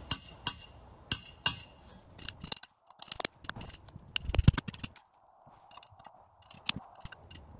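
Metal hand scraper working at rotted transom plywood: a run of sharp, irregular clicks and taps, with a heavier thump about four and a half seconds in.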